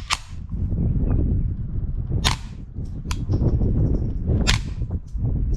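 Suppressed .22 rimfire shots through a Diligent Defense Road Hunter silencer: three sharp cracks about two seconds apart, with fainter ticks between them.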